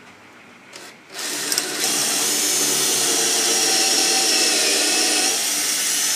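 Cordless drill boring a hole into the fir wood of an old table top: a brief blip of the motor just under a second in, then a steady drilling run of about five seconds that cuts off near the end.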